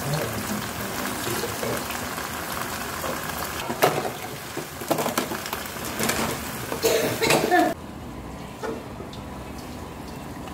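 Bean sprouts and water spinach sizzling as they are stir-fried in a stone-coated wok, with a spatula scraping and knocking against the pan several times in the middle. The sizzle cuts off abruptly about three quarters of the way through.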